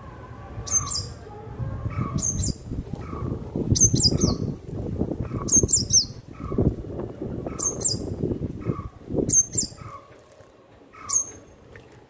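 A sunbird bathing in a water bowl: wings flutter and splash in the water, a loud rustling that dies away near the end. A sharp, high chirp repeats about every one and a half seconds throughout.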